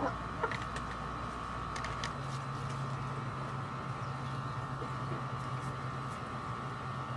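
Steady mechanical hum; its low rumble gives way to a deeper steady tone about two seconds in. Over it come a few soft clicks in the first two seconds as hens peck at food scraps on the ground.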